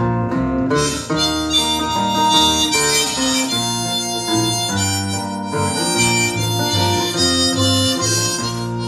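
Instrumental break of harmonica melody in held, changing notes, played on a neck-rack harmonica, with strummed acoustic guitar and electric bass underneath. The harmonica comes in about a second in.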